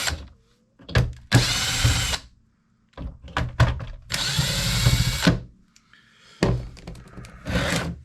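Power drill-driver running in short bursts of about half a second to a second, three times, backing screws out of a plastic clock-radio casing, with clicks and knocks of the tool and casing in between.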